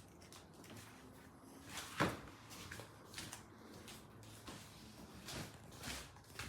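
A series of light knocks and clacks from something being handled, about six in all, the loudest about two seconds in.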